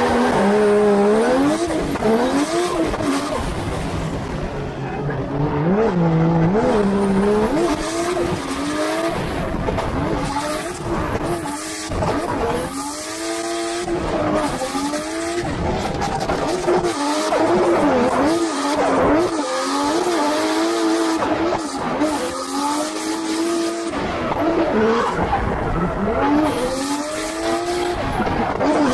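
Turbocharged Toyota 1JZ straight-six in a Nissan 240SX drift car, revving up and falling back again and again through a drift run, with tyres squealing.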